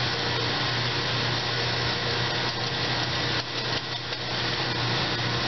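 A whisk stirring batter in a tall stainless steel pitcher, scraping and rattling against the metal, over a steady machine hum.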